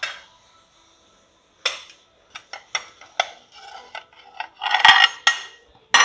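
Plates and spoons clinking on a restaurant table as food is served: a scattering of short sharp clinks, with a busier clatter about five seconds in.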